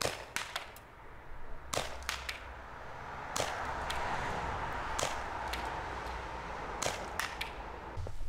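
ASG CZ 75 SP-01 Shadow fixed-slide CO2 airsoft pistol firing a string of about a dozen sharp cracks at an uneven pace, some singly and some in quick pairs and triples. It is a loud CO2 gas pistol, which the owner calls a terrible racket.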